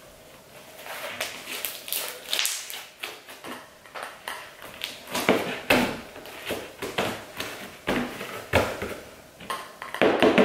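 Hands kneading and pressing a sticky slime thick with gold mica powder on a tabletop: irregular sticky clicks and squishes. Near the end, a small spoon clinks as it dips into a jar of the powder.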